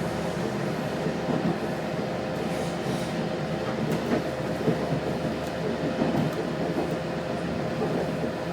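Interior running noise of an Adelaide Metro 3100-class diesel railcar under way: a steady rumble of wheels on track and engine, with a faint steady hum.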